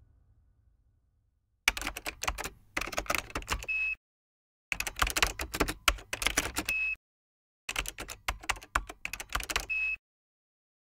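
Rapid typing clatter in three runs of about two seconds each, one run per line of text. Each run ends with a short, steady high beep.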